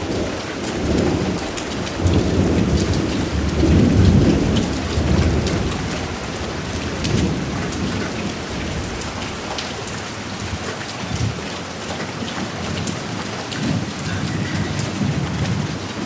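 Steady rain with drops pattering on surfaces, under rolling thunder that swells over the first few seconds, is loudest about four seconds in, then carries on as weaker rumbles.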